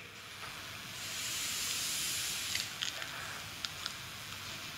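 Chalk drawn along a blackboard in a long stroke, a scratchy hiss lasting about a second and a half, followed by a few light ticks of the chalk against the board.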